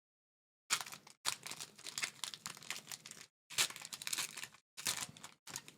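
Wrapper of an Upper Deck hockey card pack being torn open and crinkled, in about five short bursts starting just under a second in.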